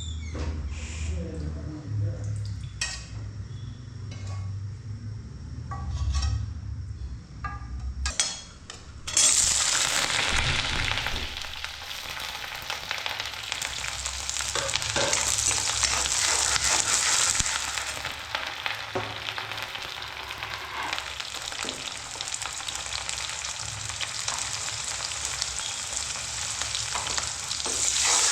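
Food dropped into hot oil in a cooking pan starts sizzling abruptly about nine seconds in, then keeps frying with stirring. This is the start of cooking a fish curry. Before that there are only a few scattered clicks and knocks over a low hum.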